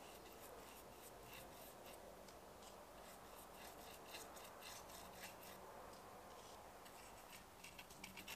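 Faint, irregular scratching of a paintbrush's bristles dabbing clear resin onto the rough bark edge of an elm board, sealing the bark.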